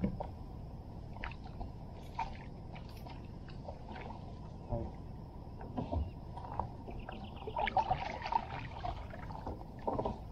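Water splashing and sloshing around a kayak, with scattered light knocks and taps on the boat.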